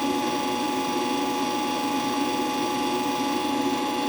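The wire feed motor of a Sherman Digimig 200 Pulse MIG welder, running with a steady electrical hum and whine. The speed holds even, with no slow-down or speed-up heard.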